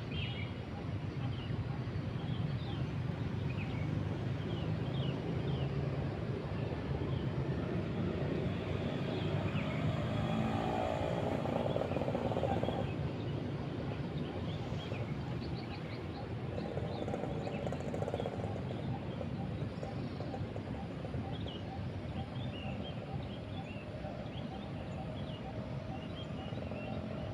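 Outdoor lakeside ambience: a steady background rumble with scattered short bird chirps, and a motor whose pitch rises from about eight seconds in before cutting off at about thirteen seconds.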